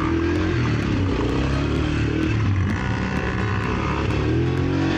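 Dirt bike engine running, its pitch rising and falling as the throttle is opened and closed.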